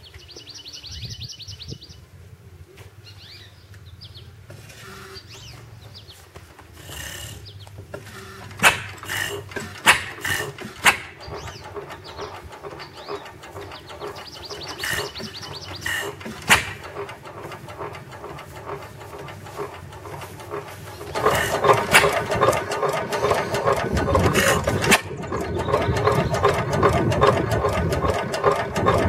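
5-1/2 hp Manitoba stationary engine being started by turning its flywheel: four sharp firing bangs between about nine and seventeen seconds in, then from about twenty seconds in the steady rapid clatter of the engine running, heard close up.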